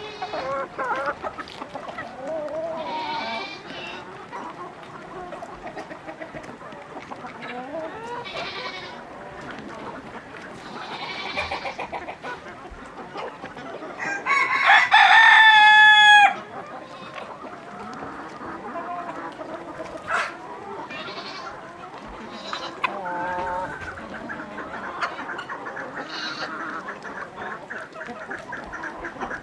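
Free-range chickens clucking and calling on and off, with a rooster crowing once, loudly, for about two seconds about halfway through.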